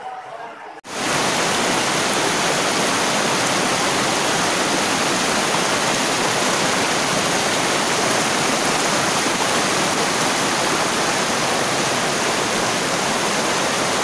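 Rushing whitewater of a rocky mountain river's rapids, close to the microphone: a loud, steady noise that starts abruptly about a second in.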